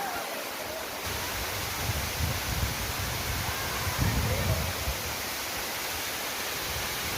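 Waterfall rushing steadily, with uneven low rumbling from about two to five seconds in.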